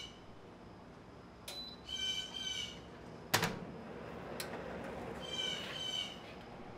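Stainless-steel food dehydrator being started and handled: a sharp knock a little over three seconds in as its glass door is worked, with a couple of light clicks. Two short bursts of high chirping calls sound, one before the knock and one near the end.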